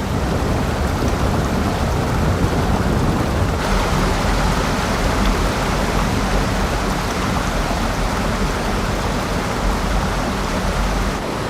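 Heavy rain and a swollen river rushing in flood: a loud, dense, steady wash of water noise. It turns brighter and hissier about three and a half seconds in.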